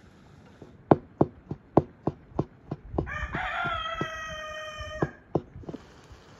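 Large kitchen knife chopping cooked chicken meat on a wooden cutting board, sharp even chops about three a second. Partway through, a rooster crows once for about two seconds.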